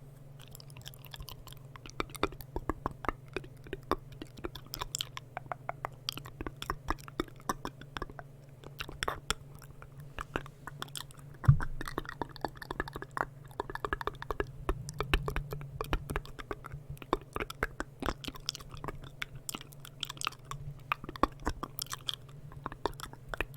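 Close-miked mouth sounds: rapid, irregular wet clicks, smacks and tongue pops, with one sharp, much louder pop about halfway through, over a steady low hum.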